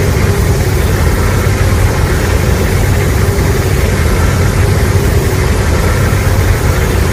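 A loud, steady, low rumbling sound effect from a Godzilla film, heavy in the bass with a constant noisy roar above it.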